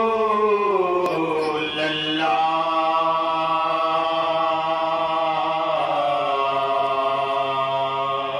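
Male voice singing a devotional naat line through a microphone in long held notes. The pitch sinks slowly over the first two seconds, steps up and holds, then shifts again about six seconds in.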